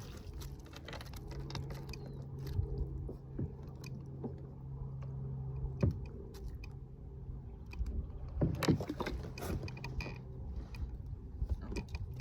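A steady low motor hum that drops away briefly about two-thirds of the way in, with scattered knocks and bumps over it.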